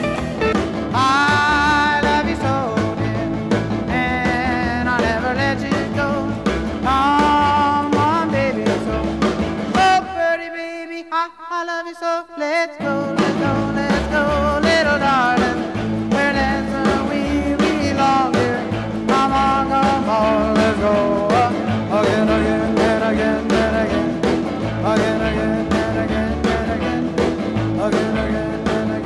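Background music: a song with a singing voice over instruments and a beat. The bass drops out for a few seconds about ten seconds in.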